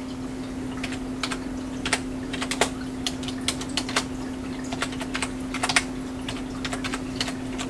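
Typing on a computer keyboard: irregular key clicks, a few keys at a time with short pauses, over a steady low hum.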